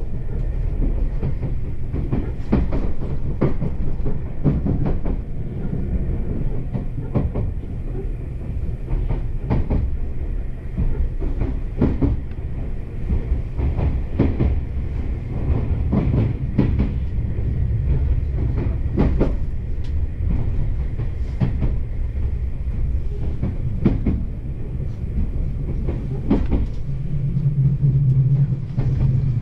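Meitetsu 1200 series electric train running, heard from inside the passenger car: a steady low rumble with the wheels clacking over rail joints at uneven intervals. Near the end a low hum grows louder.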